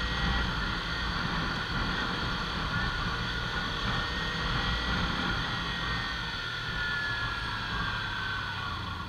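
Kawasaki Ninja 300's parallel-twin engine running under way in traffic, a steady whine over low rumble whose pitch eases down in the last few seconds as the bike slows.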